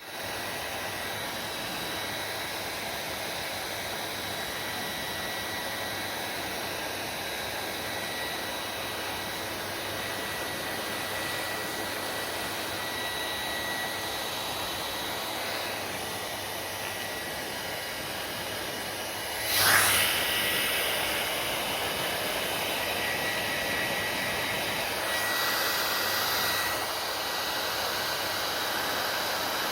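Hair dryer running steadily, an even rush of air with a faint high whine from its motor. About two-thirds of the way through comes a brief loud gust, after which it runs a little louder.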